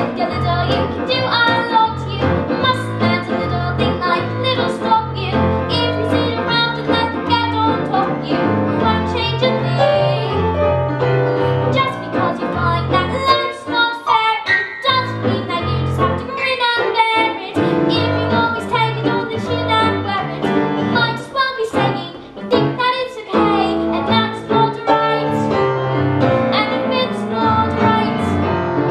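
A girl singing a musical-theatre song solo, accompanied on grand piano.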